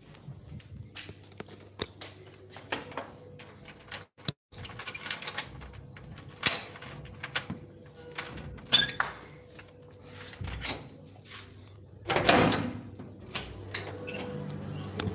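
Handling noise from a phone being carried and moved about: scattered clicks, knocks and rustling. There is a short high squeak about ten and a half seconds in, and a louder rushing scrape about twelve seconds in.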